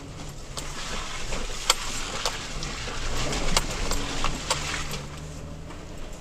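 Toyota Tacoma pickup driving on a dirt road, heard from inside the cab: steady engine and tyre noise with scattered sharp knocks and rattles, the loudest about a second and a half in.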